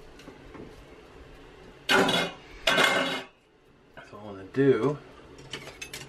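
Pan and metal utensils clattering twice in quick succession, about two seconds in, as a roast is taken out of its pan onto a cutting board.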